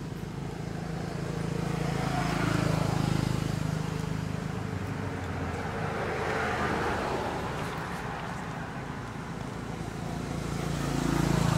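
Road traffic: a steady low engine hum, with passing vehicles swelling and fading, loudest about three seconds in, again around six to seven seconds in, and near the end.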